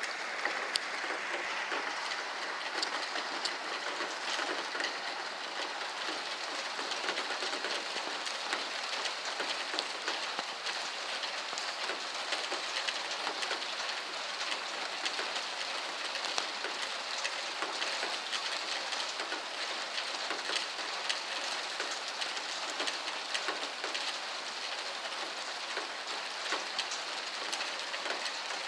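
Heavy rain falling steadily, with a dense patter of individual drops ticking throughout.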